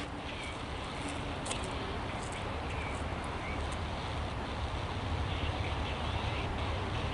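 Outdoor ambience: a low, steady rumble that slowly grows louder, with a few faint, short bird-like chirps.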